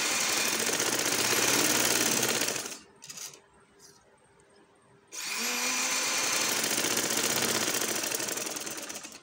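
Yashica sewing machine stitching in two runs of about three to four seconds each, with a pause of about two seconds between them. Each run starts with a short rising whine as the machine gets up to speed.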